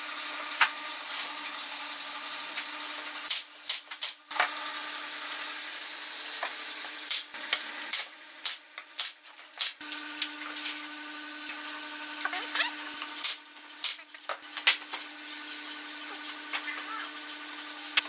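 Wooden boards knocking, clacking and rubbing as they are handled and fitted together on a wooden workbench, in several bursts of sharp knocks over a steady low hum.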